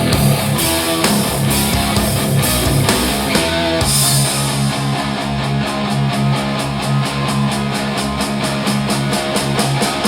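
Rock music with guitar, played through Edifier R1280-series powered bookshelf speakers as a sound demo. About four seconds in the arrangement shifts to a driving beat of about four hits a second over a steady bass line.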